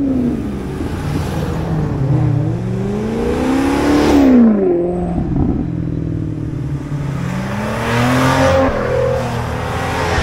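Maserati car engine and exhaust accelerating hard, the pitch climbing to a loud peak about four seconds in and falling away sharply, then climbing again near the end.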